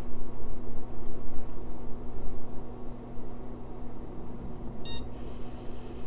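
A 386 PC booting through its BIOS power-on self-test: a steady hum from the machine, with one short PC-speaker beep near the end. A single short beep from an AMI BIOS means the self-test passed.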